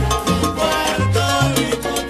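Recorded salsa-style Latin music in a guaguancó rhythm: a bass line moving in short stepped notes under sustained melodic tones, with steady hand percussion.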